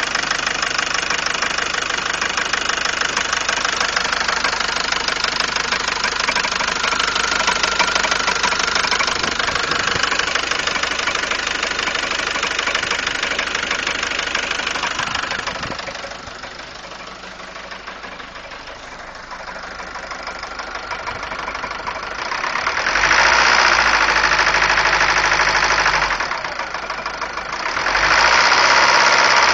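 Volvo turbodiesel engine running with a persistent knock, which remains after its timing belt timing was corrected; the cause is unknown. It runs steadily, drops quieter past the middle, then gets louder twice near the end.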